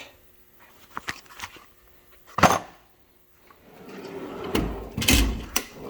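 Metal tool chest drawer shut with a sharp clack, then another drawer slid out with a rising rush and a couple of knocks near the end.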